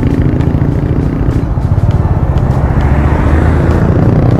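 Steady, loud rumble of a vehicle on the move in city traffic, with no distinct events.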